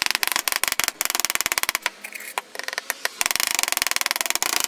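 A PVC pipe packed with freshly poured plaster of Paris being banged rapidly and repeatedly on a workbench, settling the plaster. It makes a loud, fast clatter of knocks, more than ten a second, which thins out for a moment about two seconds in.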